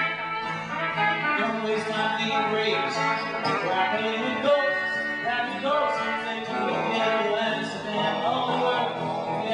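Live folk music from a duo, with guitar among the instruments, playing on continuously.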